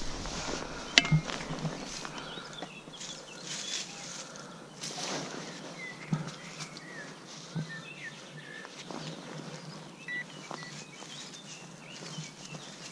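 Small birds chirping and singing, with scattered footsteps and knocks from someone moving about; the sharpest knock comes about a second in.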